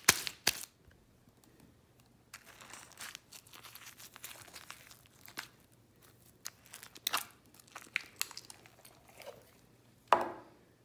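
Shampoo slime with a bath bomb mixed in, being squished and stretched by hand: irregular sticky clicks, pops and crackles, with a louder squish near the end.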